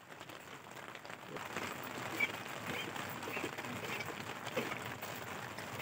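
Rain pattering on a tent's fabric, heard from inside the tent: a steady hiss that fades in at the start, with scattered separate drop taps.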